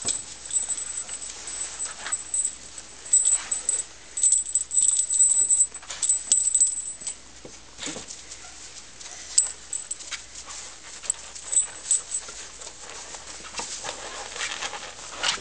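A litter of young puppies whimpering and squeaking in short, irregular bursts as they scuffle in wood-shavings bedding.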